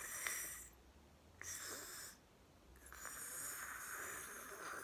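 A woman's mouth making slow, breathy slurping sounds through pursed lips, imitating a tortoise taking a long, slow drink: three slurps, the last one drawn out.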